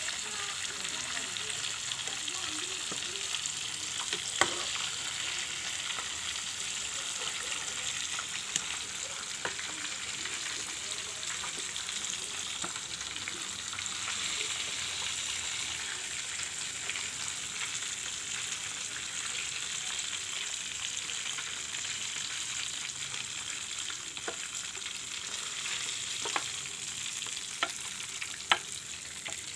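Flour-battered chicken pieces deep-frying in hot oil in a wok: a steady sizzle throughout, with a few sharp clicks, one about four seconds in and several near the end.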